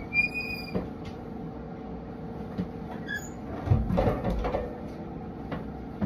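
A short, high squeak, then a brief, fainter squeak about three seconds in, followed by a few soft knocks around four seconds in.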